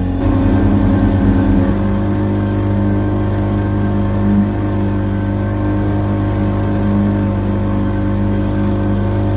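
A small fishing boat's motor running steadily under way, a constant even drone.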